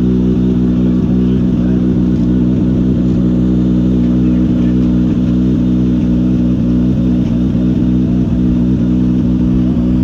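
A vehicle engine idling steadily, a loud unchanging drone with no revving.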